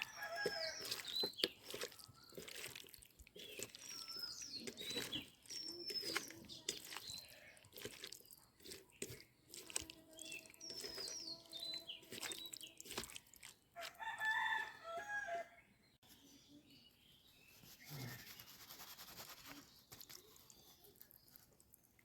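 Chickens clucking and a rooster crowing, among many short, high, falling chirps and scattered clicks.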